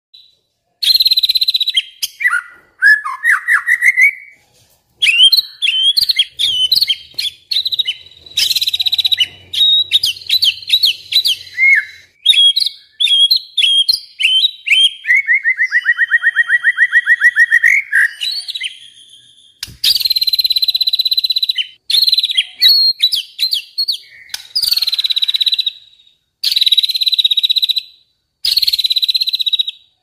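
White-rumped shama (murai batu) singing a long, varied song of whistled and warbled phrases with a rapid rising trill midway. Harsh buzzy notes repeat about every one and a half to two seconds in the second half.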